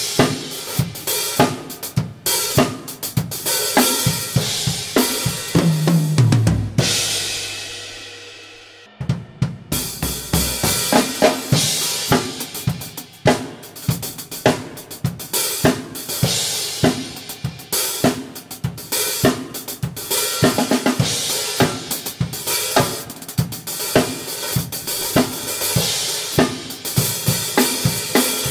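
Acoustic drum kit with Sabian HHX cymbals played alone, with no backing track: a steady beat on kick, snare, hi-hat and cymbals. About six seconds in, a fill falls down the toms and ends on a hit left ringing and fading for about two seconds before the beat starts again.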